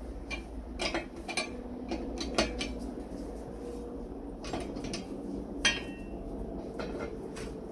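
Irregular metal clinks and knocks as the cast-iron frame and steel rods of an old washing mangle are handled and taken apart by hand, with short ringing after some strikes and the sharpest clank a little before six seconds in.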